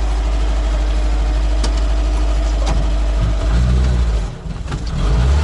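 Off-road vehicle's engine idling, heard from inside its cab. The engine note changes about three and a half seconds in, dips briefly, then rises again near the end.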